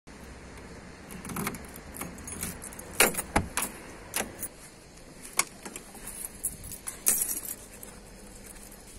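A bunch of keys on a key ring jangling as a car door is unlocked with its key and opened, with several sharp clicks and knocks from the lock and door, the loudest a pair about three seconds in.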